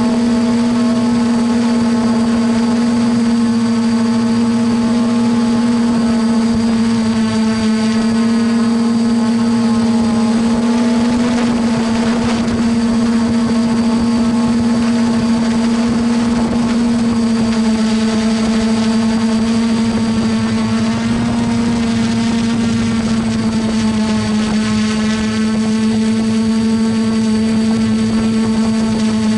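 Multirotor drone's electric motors and propellers humming steadily, heard from the drone's onboard camera: one strong low tone with overtones, at a nearly constant pitch. The pitch and level sag slightly near the end as the drone comes down.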